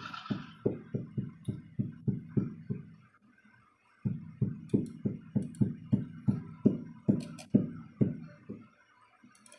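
Background music: a run of low plucked notes, about three a second, that pauses for about a second roughly three seconds in and then picks up again.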